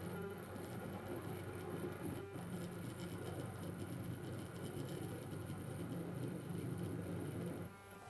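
Stepper motor on an A4988 driver buzzing with a steady hum and fine ticking as it creeps in small jittery steps: noise on the joystick's analog signal keeps commanding it to move.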